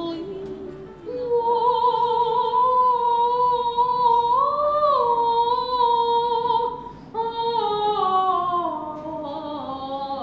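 A woman's singing voice holding long, high operatic notes with vibrato. The notes swell briefly upward in the middle, then step down note by note near the end, like vocalising exercises.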